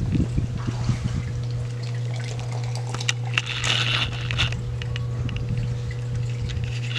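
Beer poured from a can into a glass, with the liquid running and foaming into a head; the hiss of the pour is strongest a few seconds in. A steady low hum runs underneath.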